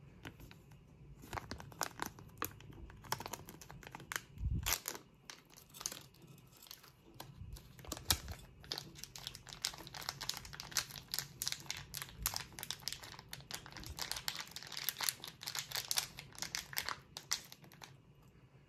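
Plastic condiment sachet crinkling and crackling in the hands as it is torn open and squeezed out, the crackle busiest in the second half. A dull thump about four and a half seconds in.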